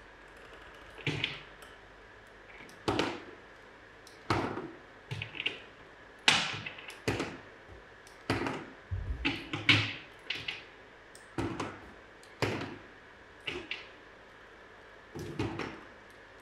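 Small wooden cylinders being set down one by one into a cardboard box: a string of separate hollow knocks about once a second, a few coming in quick pairs.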